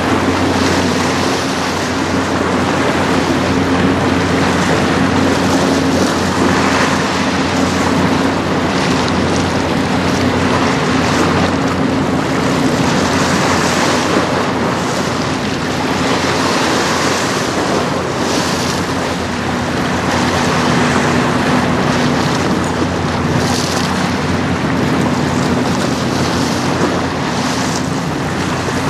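Steady low drone of the lake freighter CSL Assiniboine's engines as the bulk carrier passes close by, under the rush of its bow wash and choppy water, with wind buffeting the microphone.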